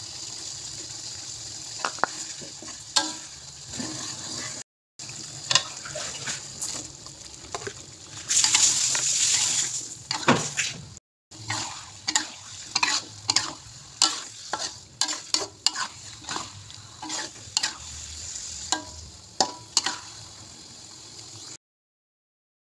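Metal spatula stirring and scraping through sambal frying in a wok, with repeated sharp clicks of the spatula against the pan over a steady sizzle. A louder hiss comes about eight to ten seconds in.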